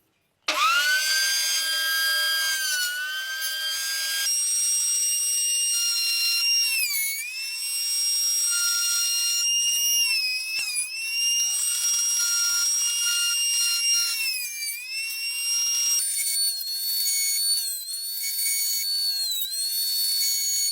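Power tool whining at a high, steady pitch that sags briefly every few seconds as it bites into wood, then recovers. It starts suddenly about half a second in, and its tone changes abruptly twice.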